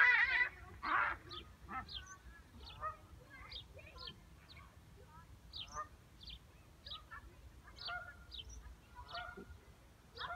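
Birds calling: short high downward chirps and some lower warbling calls repeat irregularly. Near the start there are two loud, rushing noisy bursts, a hiss or a splash.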